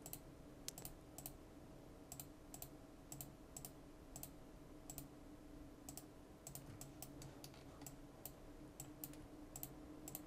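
Faint, irregular clicking of a computer mouse, a few clicks a second, over a faint steady hum.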